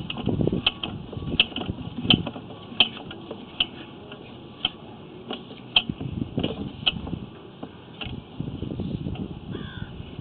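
Sewer inspection camera's push cable being pulled back and reeled in, with irregular clicks about once a second over a low rattling rumble.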